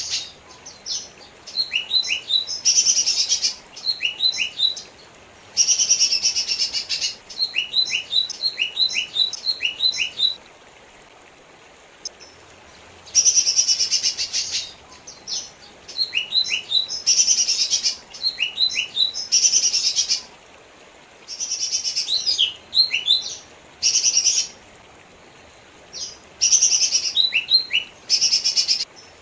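Male lesser green leafbird (cucak ijo mini) singing: dense scratchy phrases alternating with quick runs of sharp, falling whistled notes, repeated in bouts with short pauses between them.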